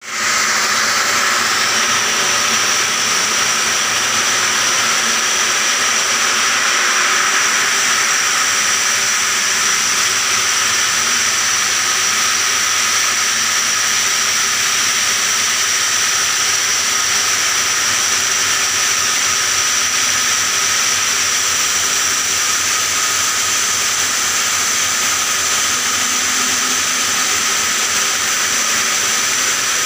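Large water-cooled circular saw of a stone block-cutting machine sawing through a stone block: a steady loud hiss of blade and water spray with a constant high whine.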